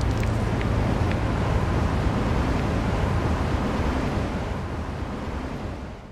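Steady rushing outdoor noise, with a few faint clicks in the first second. It fades over the last couple of seconds and cuts off.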